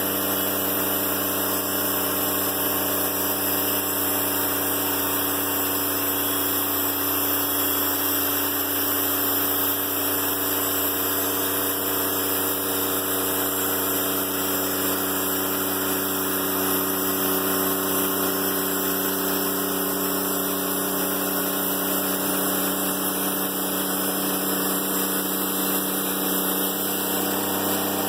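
Diesel engine of a Timberking 1400 band sawmill running steadily, with a slight change in pitch near the end.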